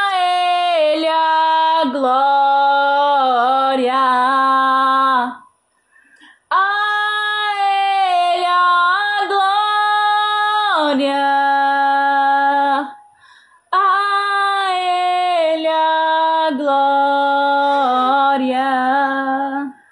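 A woman singing a worship hymn unaccompanied: three long phrases of held notes with bends and runs, breaking off briefly twice for breath.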